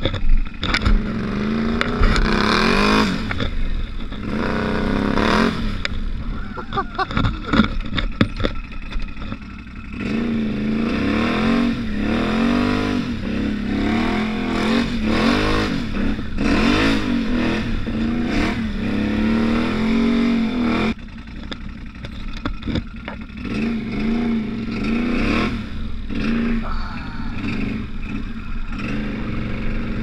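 Can-Am Outlander 850 ATV's V-twin engine being ridden hard, revving up and easing off again and again.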